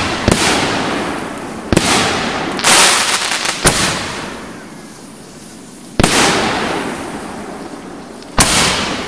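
Aerial fireworks bursting overhead, about six sharp bangs spaced a second or two apart, each trailing off in a fading hiss and crackle. There is a longer gap of about two seconds before the last two bangs.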